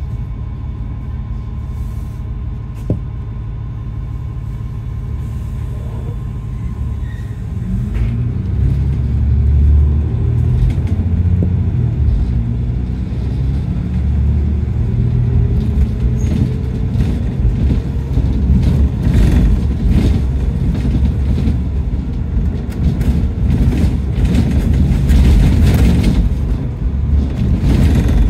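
Bus engine and road rumble, low and steady. About seven seconds in it grows louder and the engine note rises in pitch as the bus accelerates. A single click sounds about three seconds in.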